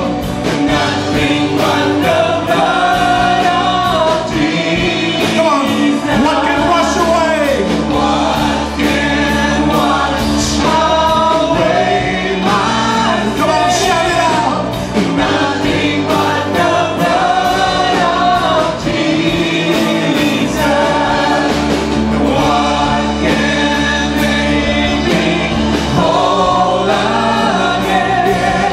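Live church worship band performing a gospel hymn: several male and female singers singing together into microphones over electric guitar and band accompaniment.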